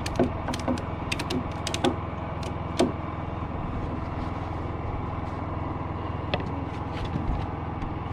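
A steady engine hum, with a quick run of sharp clicks and knocks in the first three seconds and a couple more a little over six seconds in.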